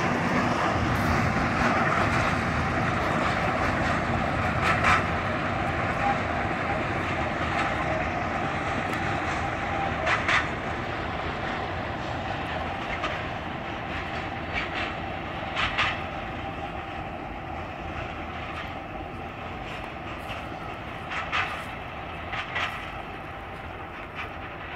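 Freight train of tank wagons rolling away: a steady rumble of wheels on rail that slowly fades, with a sharp clack every few seconds.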